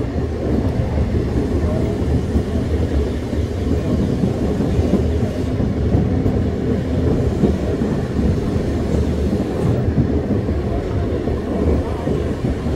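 Museum tram running along its track: a steady low rumble of wheels on rail.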